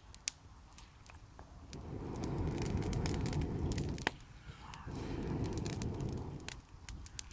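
A person blowing two long breaths into a small kindling fire of twigs and birch bark to feed the young flames, the first starting about a second and a half in and the second after a short pause. Light crackling of burning twigs runs under it.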